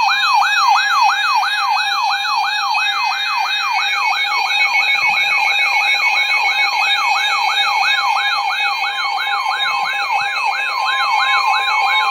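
Electronic alert siren sweeping rapidly up and down, about three sweeps a second, over a steady electronic tone: an emergency-alert warning signal.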